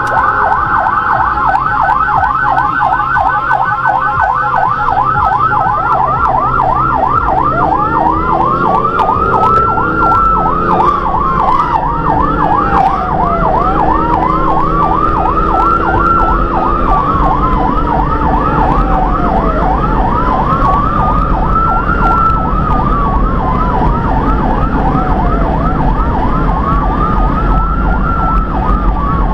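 Electronic emergency siren sounding continuously on a vehicle responding to a call: a fast yelp throughout, joined about seven seconds in by a slow wail that rises and falls about every six seconds, over engine and road noise.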